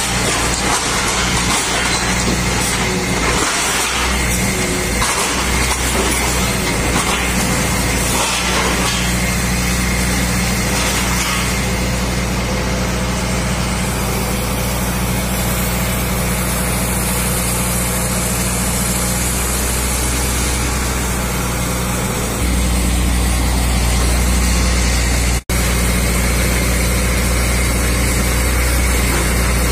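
The crane truck's engine runs steadily, a low drone that powers the hydraulic grab arm. It gets noticeably louder about two-thirds of the way through, as if revved up for the crane, and it cuts out for an instant shortly after.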